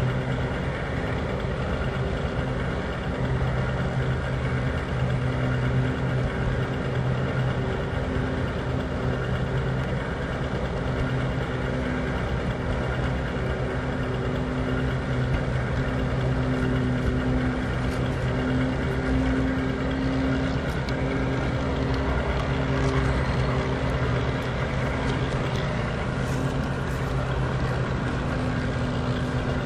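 G-scale model locomotive running along garden track, a steady drone with an even pitched hum, heard from aboard the moving train.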